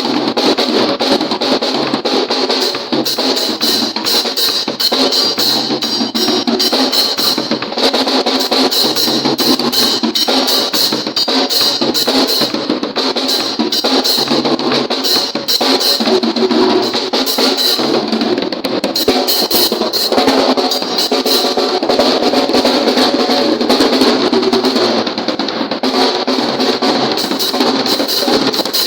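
A Pearl drum kit played continuously, with rapid strokes on snare, bass drum and cymbals and no pause.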